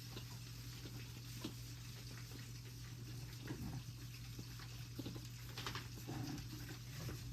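Goat kid sucking milk from a bottle nipple: faint, irregular wet smacks and sucks, over a steady low hum.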